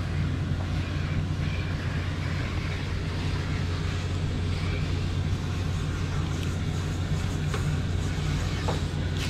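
Steady low hum of running machinery, unchanging throughout, with a few faint small ticks.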